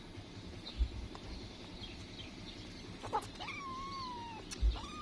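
Two thin, high kitten mews in the second half, each about a second long and drifting slightly down in pitch, with a couple of soft low thumps.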